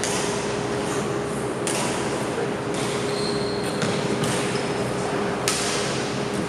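Badminton rackets striking the shuttlecock in a rally: several sharp cracks about a second apart, the loudest about five and a half seconds in. A steady hum and a brief high squeak near the middle are heard under them.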